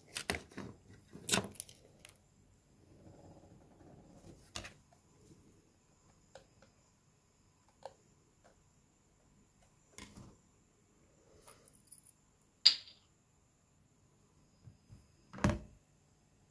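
Scattered small clicks and taps of plastic and metal phone parts and a small screwdriver being handled on a desk. About six short clicks come with pauses between them, and the sharpest is about three quarters of the way in.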